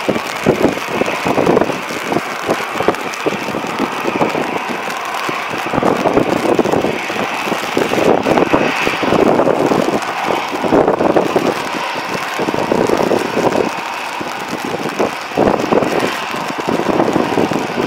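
Jet engines of an Airbus A320-family airliner running at low thrust while it rolls slowly onto the runway: a steady whine over a wavering roar. Wind gusts on the microphone make the sound flutter unevenly.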